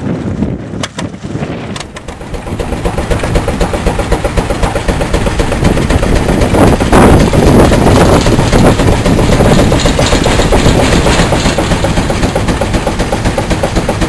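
Steam traction engine running, its exhaust beating in a rapid, even rhythm; it grows louder after about two seconds.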